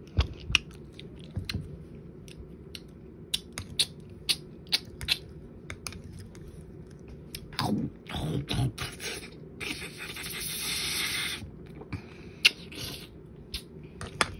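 Wet mouth sounds of jello being eaten fast: scattered smacking clicks and chewing, with a sucking hiss lasting about two seconds past the middle.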